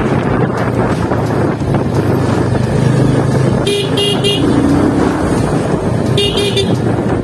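Yamaha FZ25 motorcycle's single-cylinder engine running at road speed, about 40–55 km/h. A horn sounds in a quick series of beeps about four seconds in and again just after six seconds.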